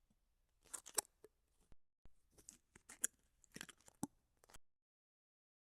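Faint crackling and scratching of a coaxial cable's braided shield being pulled back by hand, in a run of short, irregular crackles that stop about four and a half seconds in.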